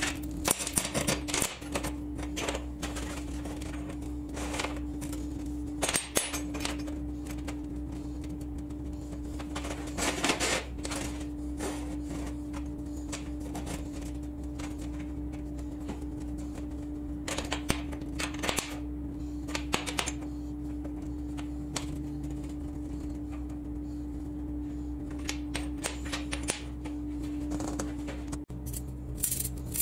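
Steel motorcycle sprockets and roller chain clinking and clattering on a steel table as they are set down and moved about, in scattered bunches of sharp clicks over a steady hum.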